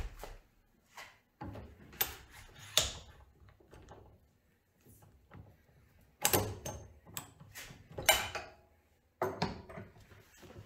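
Metal clicks and clanks of a hand-operated copper press tool, a Bluefin manual ProPress-style crimper, being worked closed on a copper press fitting and then opened and taken off. The sounds come in separate bursts, the loudest between about six and eight seconds in.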